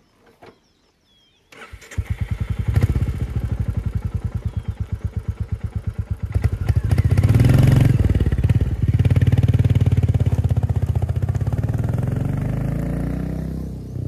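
Royal Enfield Classic 350 single-cylinder engine starting about a second and a half in and idling with an even thump. It then revs up as the bike pulls away and runs on steadily, slowly fading as it rides off.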